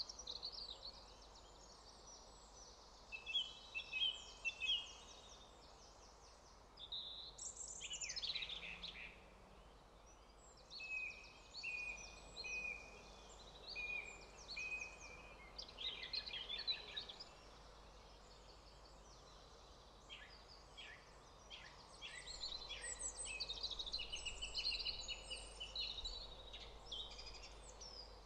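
Wild birds singing in woodland: several overlapping high-pitched songs, trills and chirps, with short pauses between phrases.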